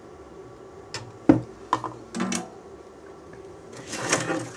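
Small tools and parts handled on a soldering bench: a few sharp clicks and taps about a second in, then a brief rustling scrape near the end.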